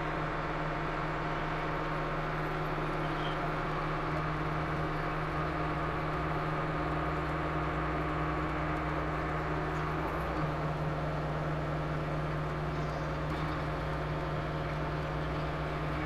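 Tractor engine running steadily under the hydraulics that work a tractor-mounted auger post hole digger, a constant low engine note with overtones that shifts slightly about four and ten seconds in.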